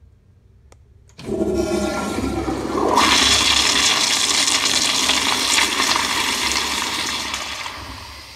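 Commercial flushometer toilet flushing: a click, then a sudden loud rush of water a little over a second in that swells into a hissing gush and tapers off near the end.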